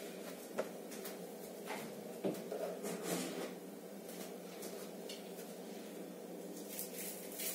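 A few faint clicks and knocks of kitchen items being handled, with a steady low hum underneath.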